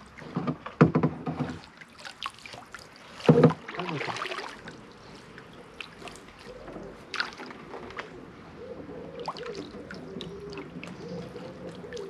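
Double-bladed paddle dipping and splashing as a canoe is paddled along, with a few louder sharp strokes in the first few seconds and the loudest about three seconds in.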